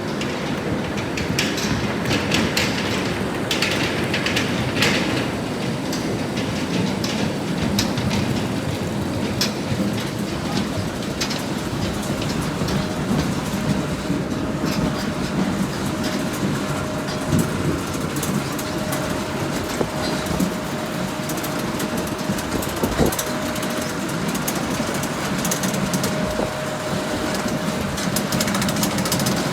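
Potato harvesting and handling machinery running with a continuous clattering rattle and many small knocks of potatoes on the conveyors. A faint steady whine joins about halfway through.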